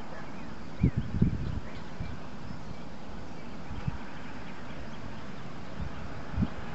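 Outdoor ambience with faint birds chirping over a steady background hum, and a few brief low thumps about a second in and again near the end.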